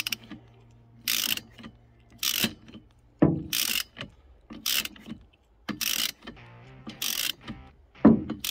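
Ratchet wrench clicking in short bursts, about seven of them a little over a second apart, as the handle is swung back between strokes to tighten a windscreen wiper arm nut. Two duller knocks come about three seconds in and near the end.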